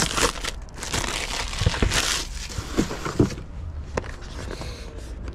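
Paper and cardboard packaging rustling and crinkling in the hands as a small product box is unpacked and its instruction leaflet is handled. The crinkling is busiest for about the first three seconds, then gets quieter, with a few light clicks.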